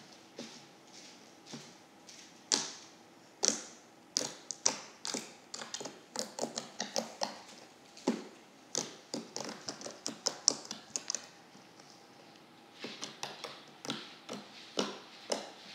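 Thick white slime being squeezed, folded and pressed by hands, giving an irregular run of sharp sticky pops and clicks, with a brief lull partway through.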